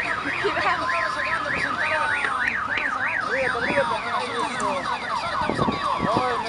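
A car alarm sounding: a warbling tone rising and falling about three times a second, which switches a little past halfway to a faster pattern of falling sweeps. Fireworks pop and whistle underneath, with a couple of bangs near the end.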